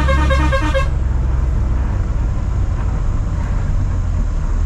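A vehicle horn blares in a fast pulsing pattern, a few beeps a second, and stops about a second in. After that the truck's engine runs and the road rumbles under it, a steady noise with a strong low rumble.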